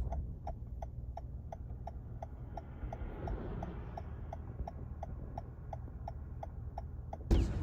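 A car's turn-signal indicator clicking steadily, about three even clicks a second, over the low hum of the car's cabin.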